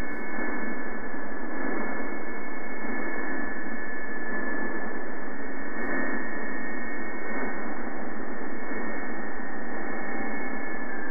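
Shortwave receiver audio from the LD-1B software-defined radio tuned to the 20-metre PSK-31 segment in upper sideband: steady hiss of band noise through a narrow audio passband, with several steady PSK-31 data tones, the loudest one high-pitched.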